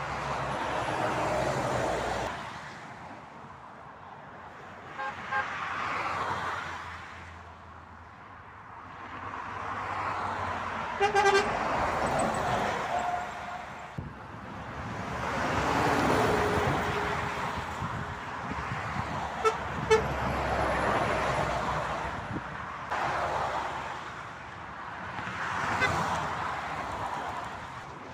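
Motorway traffic passing one vehicle after another, each swelling and fading. Over it come vehicle horn toots: two short ones about five seconds in, a louder horn blast about eleven seconds in that trails off over the next two seconds, and two sharp toots near twenty seconds.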